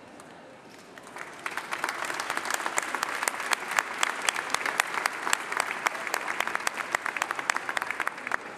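Crowd applauding: scattered hand claps start about a second in, quickly build into full, steady applause, and ease off slightly near the end.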